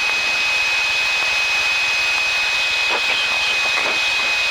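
Steady in-flight cabin noise of a Piper PA-28-161's engine and propeller holding altitude, heard as an even hiss with a thin, steady high whine running through it.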